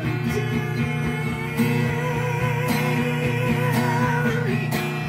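Band playing a Malay pop song, led by strummed acoustic guitar, with a long wavering melody note held through the middle.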